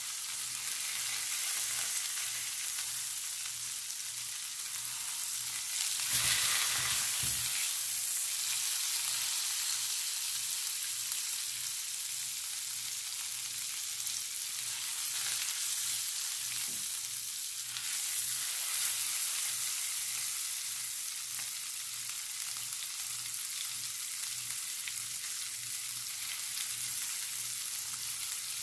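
Beef pot roast sizzling in hot fat as it browns in an electric skillet, a steady hiss that flares louder about six seconds in.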